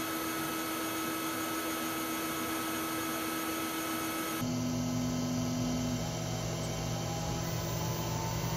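xTool P3 CO2 laser engraver running an engraving job: a steady mechanical hum with a few held tones, which shift lower about four seconds in.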